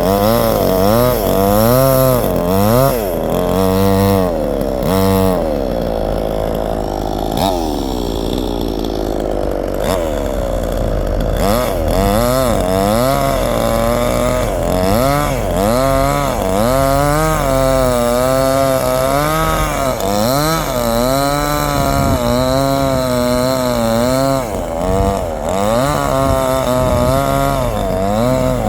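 Chainsaw engine running and revving up and down over and over, about once a second, with a steadier stretch of slower pitch changes around a third of the way in.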